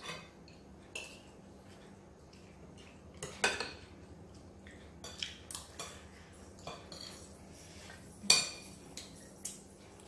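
Metal spoons and forks clinking and scraping against plates as people eat, in scattered separate clinks; the loudest come about three and a half seconds and eight seconds in.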